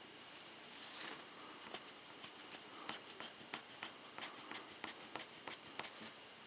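Lead-removal polishing cloth scrubbing the front face of a stainless steel revolver cylinder: faint, quick rubbing strokes, about three a second, starting about two seconds in.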